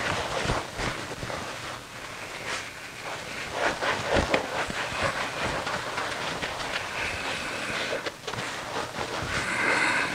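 Whiteboard eraser rubbing across the board in repeated wiping strokes, clearing marker writing, with short squeaks in the last few seconds.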